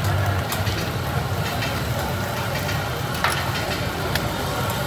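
Eggs frying on a flat steel griddle, a steady sizzle over a steady low hum. A few light taps come through, the sharpest a little over three seconds in.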